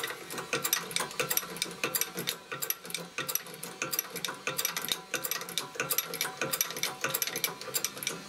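Hand-pumped hydraulic shop press working slowly under load, with quick irregular mechanical clicking and clacking as its ram forces the old silent block (rubber bushing) out of a lower control arm.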